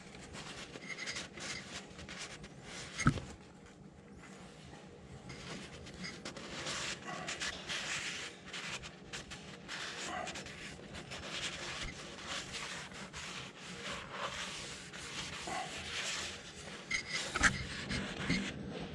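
Cloth shop rag rubbing in strokes around the inside of an engine cylinder bore, wiping the block clean. A sharp knock comes about three seconds in, and another near the end.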